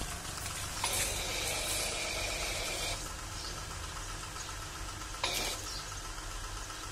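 Car-wash high-pressure washer pump running steadily. A hiss of water spray comes in about a second in and stops near three seconds, with another short spray burst about five seconds in.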